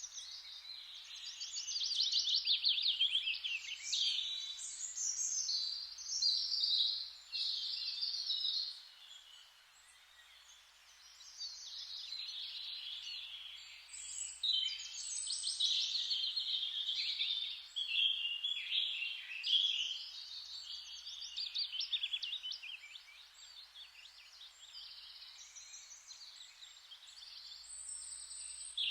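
Forest ambience of several songbirds chirping and trilling over a steady soft hiss. The birdsong comes in dense waves, falls to a lull about nine seconds in, then picks up again.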